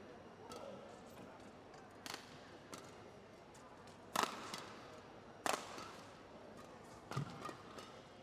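Badminton rackets striking a shuttlecock in a back-and-forth exchange: sharp, echoing hits a second or more apart, the loudest two about four and five and a half seconds in, with lighter hits and a dull thud between, over a low hall murmur.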